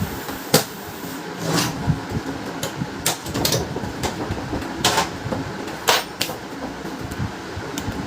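Scattered plastic clicks and knocks from an HP LaserJet P1102 laser printer's casing and parts being handled as it is taken apart, over a steady background hum.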